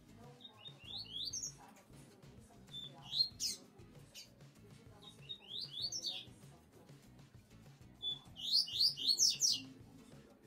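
Double-collared seedeater (coleiro papa-capim) singing in its cage: four short song phrases, each a brief high note followed by a quick run of rising whistles, the last one, near the end, the longest and loudest.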